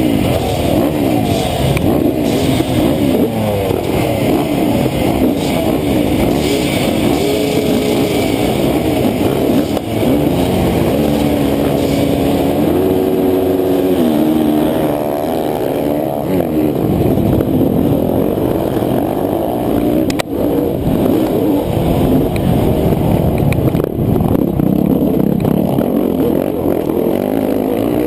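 Honda CR500 single-cylinder two-stroke motocross bike and the surrounding dirt bikes revving on the start line, pitches rising and falling and overlapping. After that the pack launches and races away at full throttle.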